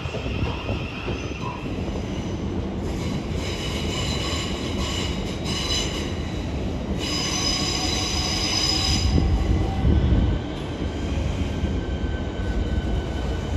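Electric passenger train running on the rails with a steady low rumble, its wheels squealing in two high-pitched bouts, from about three seconds in and again from about seven seconds in.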